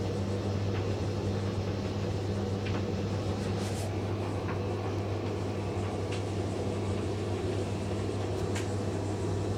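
Indesit IDV 65 tumble dryer running steadily mid-cycle, its motor and drum giving a low hum, with a few light ticks from inside the turning drum.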